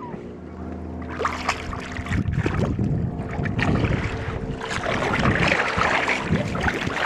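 Hooked rainbow trout thrashing and splashing at the surface of shallow water as it is played in toward a landing net. The irregular splashing builds a second or so in and is loudest in the second half.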